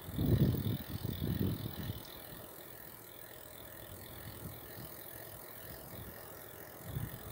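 Bicycle freewheel hub ticking steadily as the bike coasts without pedalling. Low gusty rumbles of wind on the microphone come in the first two seconds.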